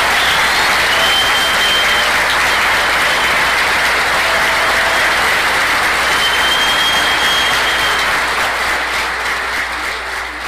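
Audience applauding steadily and loudly, dying down over the last couple of seconds. Two long, high held tones, like whistles, rise above the clapping, about a second in and again past the middle.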